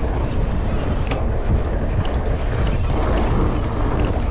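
Wind buffeting a GoPro Hero 9's microphone on a fast mountain bike descent over a dry dirt trail, a steady rumble, with a few sharp rattles from the bike.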